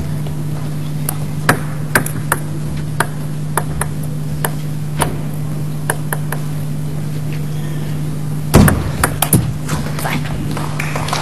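Table tennis rally: the celluloid ball clicking sharply off the bats and the table at about two hits a second. About eight and a half seconds in comes a loud thump, followed by a few quick knocks, over a steady low hum.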